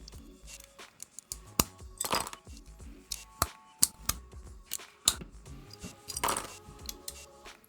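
Small plastic LEGO pieces clicking and clinking as they are handled and pressed together, over background music, with a short rustle about two seconds in and again about six seconds in.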